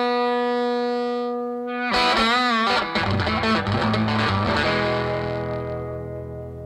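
Blues band closing the song on distorted electric guitar: a held note bent with vibrato, then a short bending phrase. After that the band lands on a final chord that rings out and fades.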